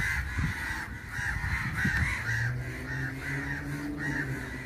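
A flock of crows cawing over and over, many calls overlapping. A low steady hum comes in about halfway through.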